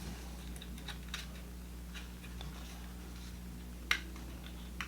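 Faint, scattered clicks and ticks from small hard items being handled, with one sharper click just before the end, over a steady low hum.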